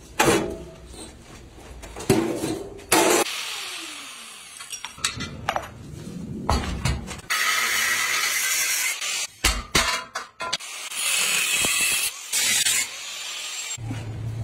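Angle grinder grinding a steel electric-scooter frame in several bursts of steady high-pitched grinding, with sharp metal clanks in the first few seconds as the frame is handled.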